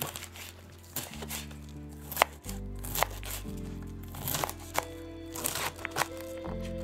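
Background music with slow, held chords, over a kitchen knife cutting food on a wooden cutting board in crisp, irregular cuts about once a second.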